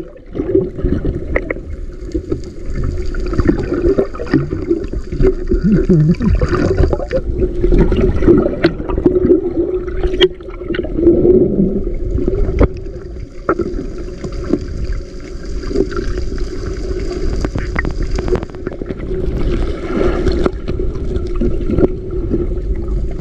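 Underwater sound heard through a submerged camera's housing: a muffled rush of water with a steady low drone at one pitch and scattered clicks and knocks.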